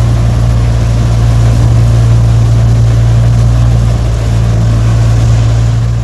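Punni Jaat combine harvester running under load while threshing soybeans: a loud, steady mechanical drone from its engine and threshing and straw-blowing works.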